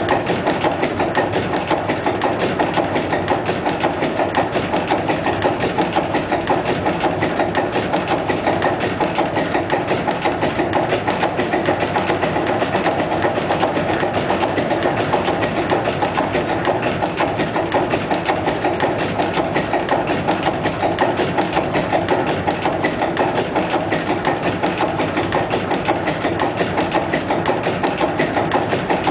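Deutsche Werke six-cylinder, 196 hp diesel engine running steadily at constant speed, its exposed rockers and pushrods adding an even, rapid mechanical clatter to the engine's beat.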